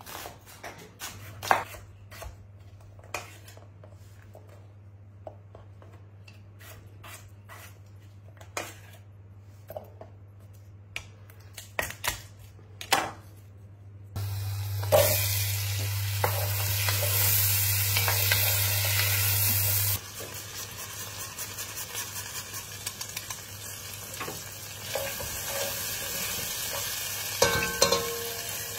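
A chef's knife chopping potatoes on a wooden board, irregular sharp cuts. About halfway through it gives way to diced potatoes and onions sizzling in melted butter in an enamelled cast-iron pot, loudest at first and then settling to a softer sizzle, with a wooden spoon stirring and a few knocks against the pot near the end.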